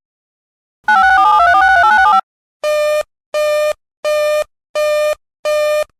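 Emergency Alert System broadcast tones: a burst of rapidly warbling, stepping digital data tones (the SAME code) for about a second, then a buzzy alert tone beeping in five even pulses, about one and a half a second.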